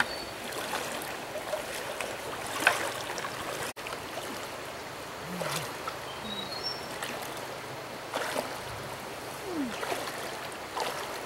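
Shallow stream water running and swirling around the legs of people wading through it, with a few sharper splashes.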